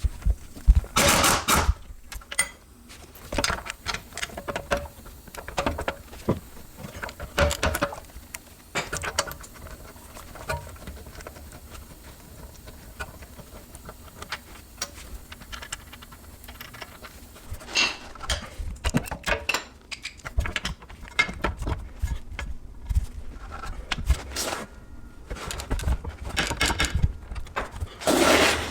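Socket wrench working loose the 17mm bolts that hold a rear wheel bearing and hub assembly to the knuckle: scattered metal clicks, clinks and rattles in several short spells.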